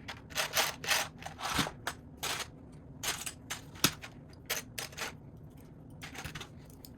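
Loose plastic Lego pieces clicking and clattering as they are sifted and handled, a quick series of short clicks with the sharpest one about four seconds in.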